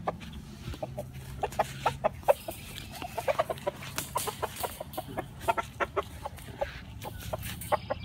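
Rooster clucking in quick irregular runs of short clucks.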